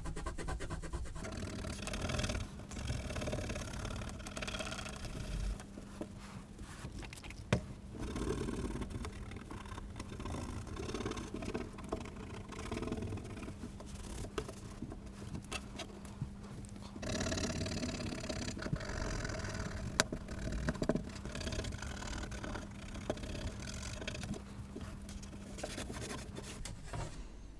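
Scrubbing and rubbing at stubborn marks on the underside of a plastic computer case: an irregular scratchy rubbing with a few sharp clicks, over a steady low hum.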